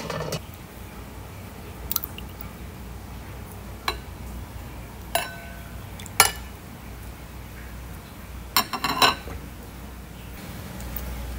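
A metal spoon clinking against small ceramic bowls as dipping sauce is ladled and stirred: single light clinks every second or two, one ringing briefly, and a quick cluster of clinks near the end.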